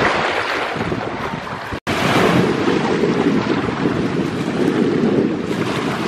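Wind buffeting the microphone over breaking surf, a steady rushing noise with a brief gap about two seconds in, after which the low rumble is heavier.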